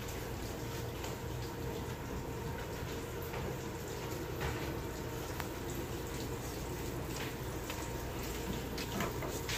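Water running from a bathroom tap into the sink while hands are washed, as a steady rush.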